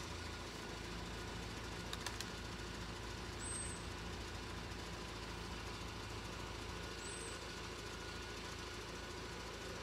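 Railway level crossing's audible warning alarm sounding quietly in night mode, a steady two-tone sound over a low background hum, with a couple of faint clicks about two seconds in.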